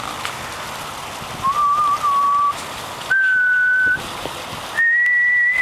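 A person whistling three long held notes, each higher than the last, with short pauses between them, over a steady hiss.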